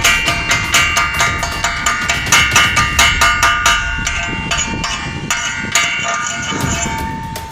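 Steel being struck with a hammer in a quick, uneven series of blows, about three to four a second, each leaving a metallic ring.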